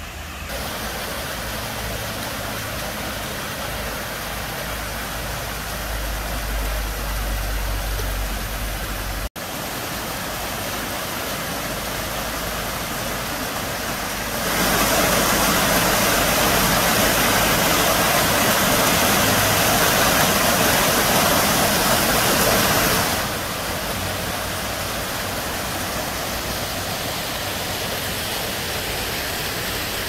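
Water rushing and splashing down the concrete steps of a drainage-channel weir, a steady noise that grows louder for about eight seconds midway, with a brief gap about nine seconds in.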